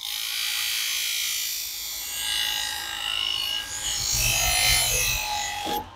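Bench grinder's motor running with a steady whine while a knife blade is held against its spinning felt wheel, a hissing rub that strips off the burr left by sharpening. The sound stops suddenly just before the end.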